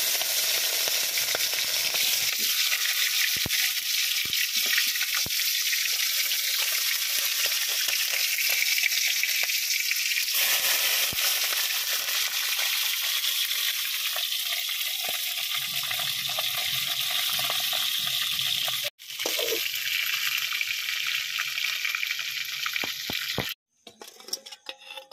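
Chicken pieces frying in hot oil in a metal kadhai: a steady, loud sizzling hiss. It breaks off for an instant about 19 seconds in, then resumes and cuts off suddenly shortly before the end.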